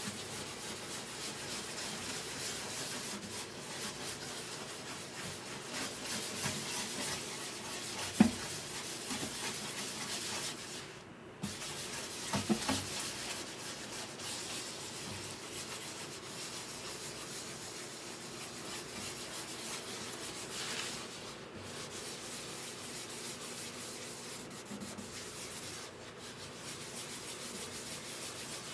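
Steady hand sanding on wood, a continuous rubbing hiss that breaks off briefly twice, with a sharp knock about eight seconds in and a few lighter knocks soon after.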